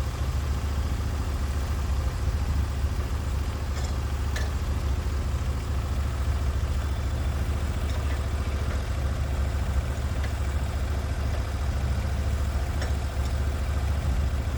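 Sawmill engine running steadily, with a few faint clicks.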